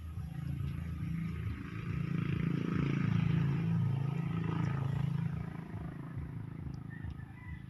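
Low rumble of a passing motor vehicle, building to its loudest around the middle and fading away.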